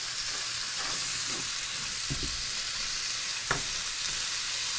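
Food frying in hot oil in a pot: a steady sizzling hiss, with a single sharp click about three and a half seconds in.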